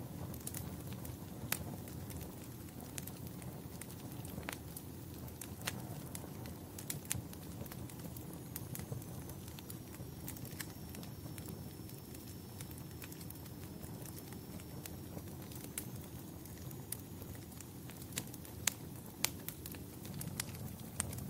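Wood fire crackling in a fireplace: a steady low rush of flame with irregular sharp pops and snaps, a few louder pops near the end.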